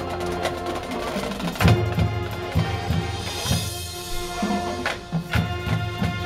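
High school marching band playing a pop arrangement: brass and woodwinds hold chords over regular drum strikes, with a loud hit about a second and a half in. Near the middle the low brass and drums thin out, then the full band comes back in.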